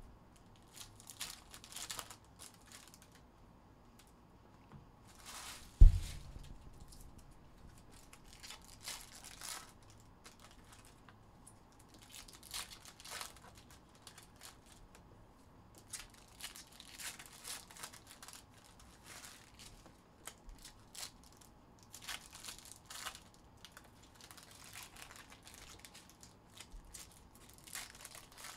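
Foil trading-card pack wrappers being torn open and crinkled, in repeated short rustling bursts. A single loud thump comes about six seconds in.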